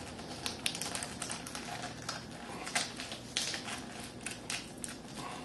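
Crisp leaves of a head of lettuce crackling and snapping as the outer layer is peeled off by hand, a string of short irregular crackles.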